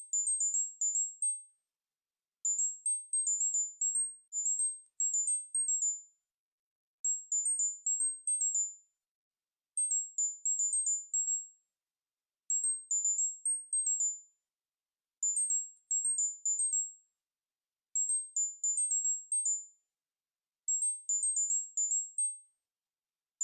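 Synthetic tinnitus-relief tone pattern: short, very high-pitched pure beeps around 8 kHz, hopping quickly among a few close pitches. They come in clusters of about six to eight notes lasting under two seconds, repeating about every two and a half to three seconds with silence between.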